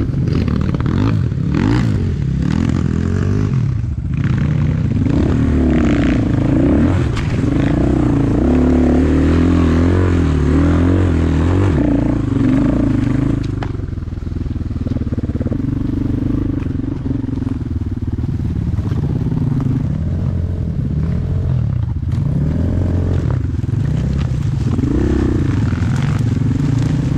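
Enduro motorcycle engine running while riding off-road, its pitch rising and falling as the throttle is worked. The revs settle lower about halfway through, then pick up again.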